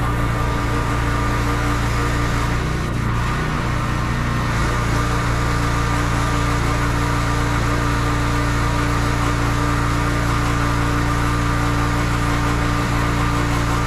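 Gas-engine pressure washer running steadily at constant speed, with the hiss of the water and soap spray.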